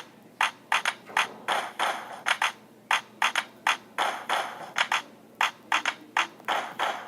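A percussion beat with no vocals: sharp, clicky hits and snare-like noisy strikes in a repeating rhythm.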